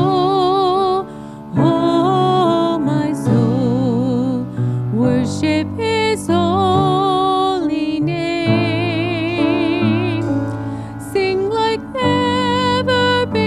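Contemporary worship song: a woman singing the melody in phrases with vibrato, accompanied by grand piano.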